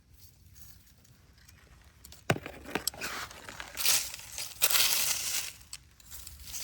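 A sharp snap about two seconds in, then crunching and crackling of dry forest-floor debris being pulled apart, in two louder spells.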